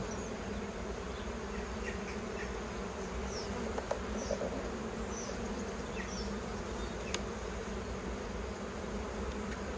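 Buckfast honeybees of an opened hive buzzing steadily, with one sharp click about seven seconds in.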